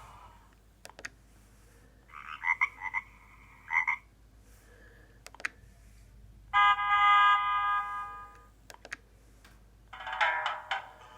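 Nokia 2310 mobile phone playing short ringtone previews one after another, with pairs of sharp clicks between them. A warbling, chirping tone pattern comes about two seconds in, a loud held electronic tone around seven seconds, and the start of another melody near the end.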